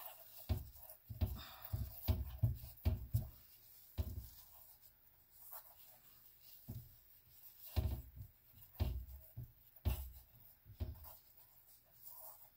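A gloved hand rubbing and smearing thick black base-coat paint across a canvas, with irregular low thumps in clusters as the hand presses and drags over it.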